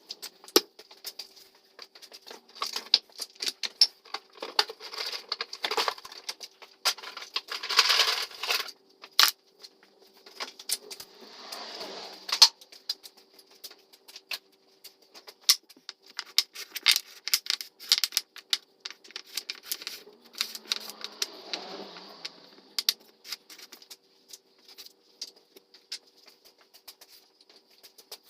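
Quick, irregular clicks, taps and knocks of wooden frame parts and tools being handled during picture-frame assembly, sped up fourfold. A few short scraping or rubbing noises come in among them.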